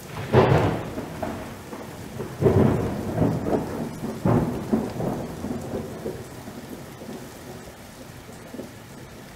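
Thunderstorm sound effect: rolls of thunder over steady rain. The biggest rumbles come right at the start and at about two and four seconds in, and the storm dies away toward the end.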